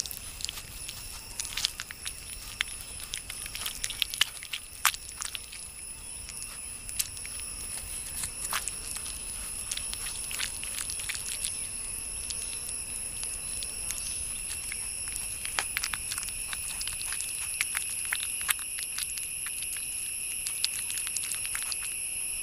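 Insects droning with a steady, high, multi-toned whine that slowly grows louder, over scattered sharp clicks and crackles.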